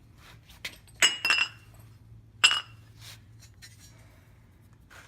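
Loose steel parts clinking against each other: three sharp, ringing clinks about a second in, just after, and about two and a half seconds in, with lighter taps between.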